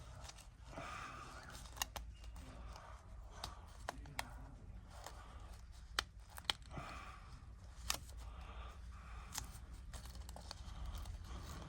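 Scattered light clicks and taps of small tools and tablet parts being handled during the repair, irregular and spaced about half a second to a second and a half apart, over a faint steady hiss.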